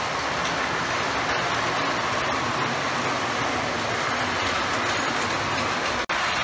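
O gauge model train running along the layout's track: a steady rumbling whirr of wheels on the rails and motor. The sound drops out for an instant near the end.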